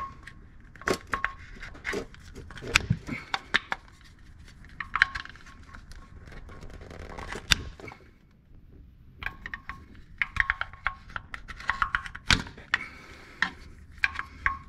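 Metal clinks, knocks and scraping of an oil filter removal tool being fitted to and worked on an overtightened spin-on oil filter, in irregular bursts with a short quiet pause about eight seconds in.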